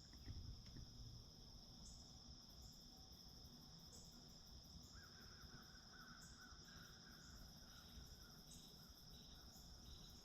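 Faint chorus of crickets: a steady high trill with evenly repeating chirps above it, and a second, lower rapid trill about halfway through.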